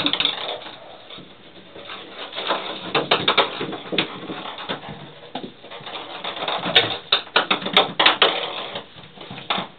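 Ping pong ball bouncing and skittering in a bathtub as kittens bat it about: quick runs of light hard taps, busiest around three seconds in and again from about seven to eight seconds in.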